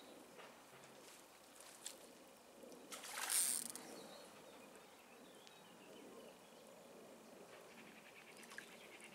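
Water sloshing as a hooked barbel is played close to the bank, with one louder splash about three seconds in and faint ticking near the end.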